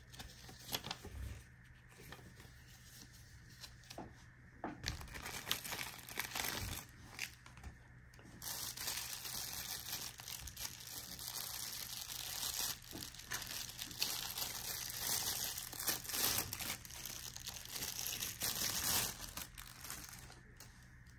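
Packaging being handled and crinkled: a few scattered taps and clicks at first, then steady crinkling and rustling from about five seconds in, densest from about eight seconds in until it fades near the end.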